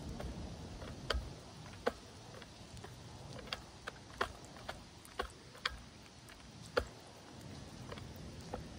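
A cat eating chunks of wet food from a plastic bowl: irregular sharp clicks and smacks of chewing, about ten in all, at uneven gaps.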